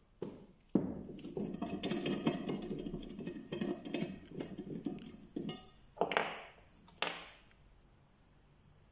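Stainless steel dent-repair tap heads and push rod clinking and rattling against each other and the table as they are picked up and set down. A sharp knock comes about a second in, then several seconds of clatter, then two shorter sounds near the end.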